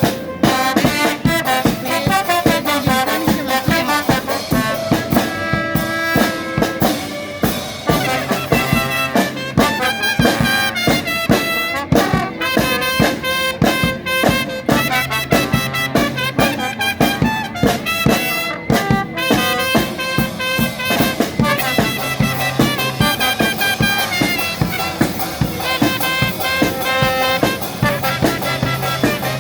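A charanga street brass band playing a lively tune, with trumpets, trombones and saxophones over drums keeping a steady beat.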